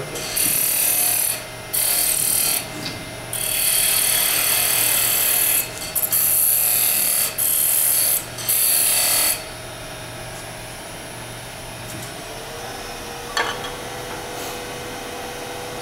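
Turning tool cutting a small piece of wood spinning on a wood lathe, a hissing scrape in several bursts with short breaks, stopping about nine seconds in. After that the lathe runs on with a steady hum and a faint whine, with a single click shortly after the whine comes in.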